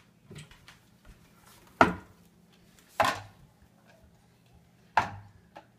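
Dishes knocking as they are lifted out of a dishwasher and set down: three sharp knocks a second or two apart, each with a brief ring, and fainter clinks between them.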